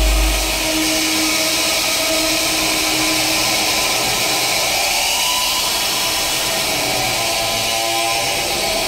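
Modular synthesizer putting out harsh, dense electronic noise with a few held tones under it, as the kick-drum beat drops out about half a second in. A tone rises around the middle while the knobs are being turned.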